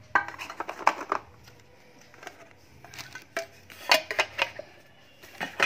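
A metal tin watch box and its lid being handled, clinking and knocking in short clusters: in the first second, again around three to four seconds in, and once more near the end.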